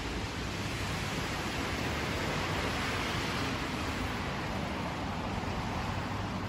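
Honda CBR250RR's parallel-twin engine idling steadily, heard as a faint low hum under a loud, even hiss.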